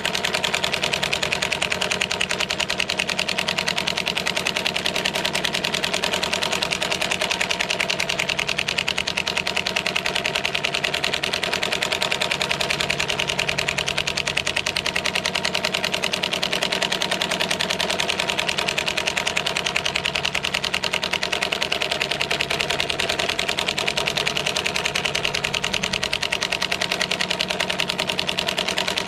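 DeWalt DCF899 cordless impact wrench on its first, lowest-torque setting, driving a 5-inch lag bolt into a wooden board. Its hammer mechanism gives a rapid, steady rattle of impacts that does not slow.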